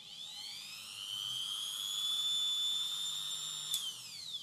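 Electric drill running free with a small abrasive cut-off disc in its chuck: a high motor whine rises as it spins up, holds steady, then falls away after a click near the end as it spins down.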